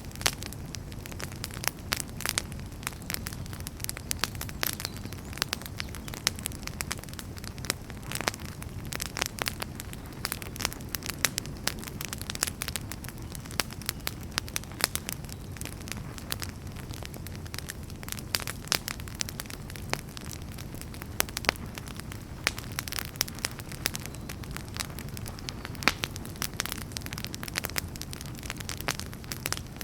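Outdoor campfire burning with frequent sharp pops and crackles of the burning wood, over a steady low rumble of the flames.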